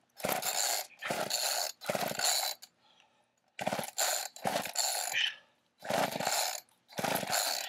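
Homelite gas chainsaw being pull-started: about seven quick yanks on the recoil starter cord, each a short whirring rasp of the engine turning over, roughly one a second with a pause of about a second after the third. The engine does not catch.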